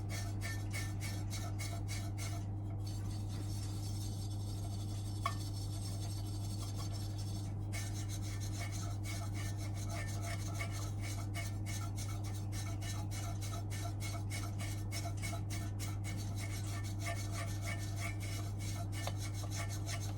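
A brush scrubbing over the fins of a boiler's combustion fan, a quick, even run of rasping strokes, about four or five a second, over a steady low hum.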